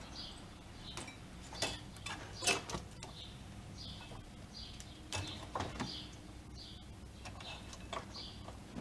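A small bird chirping over and over in short, high, evenly spaced chirps. A few light clicks and taps of tools on metal come in between.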